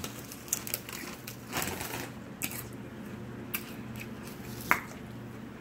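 Potato chips crunching as they are chewed with the mouth close to the microphone: irregular crisp crackles, a few bunched together about one and a half seconds in and single ones later, over a faint steady hum.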